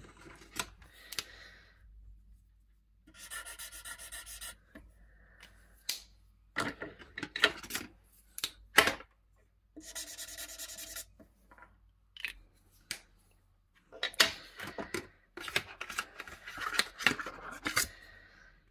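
Alcohol markers and their packaging being handled: bursts of rubbing and scraping broken by short sharp clicks.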